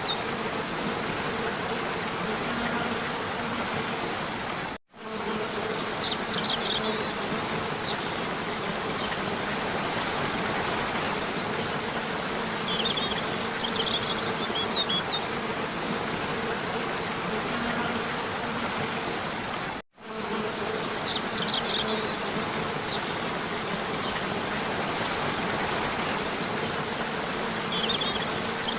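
A steady buzzing hum over a rushing noise, with short high chirps recurring every few seconds. The sound cuts out abruptly twice, about five seconds in and again about twenty seconds in.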